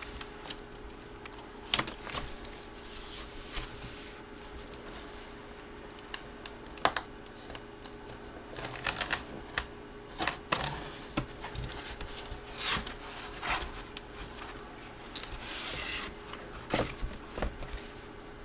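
Hands handling and unwrapping packaging: scattered sharp clicks and taps with short rustles, busier in the second half.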